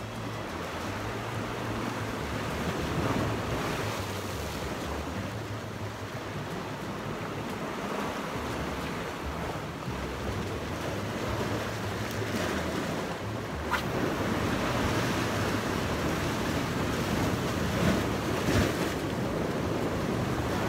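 Sea waves washing and breaking against shoreline rocks, swelling and easing, with wind buffeting the microphone. A short sharp tick sounds once about two-thirds of the way through.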